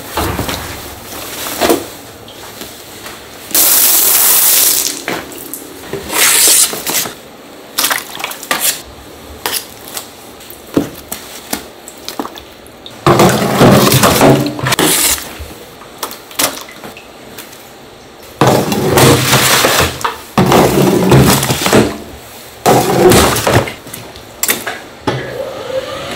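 Wet handling of slimy eel mass pulled out of a steel drum by hand and dropped into plastic basins on a steel table. It comes in several bursts of squelching, splashing and knocking, one of them mostly a hiss.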